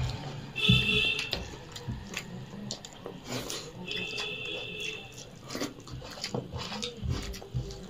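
Eating sounds of people taking rice and egg curry by hand from steel plates: chewing, lip smacks, and fingers scraping and tapping on the plates. Two short high-pitched tones ring out, about half a second in and again about four seconds in.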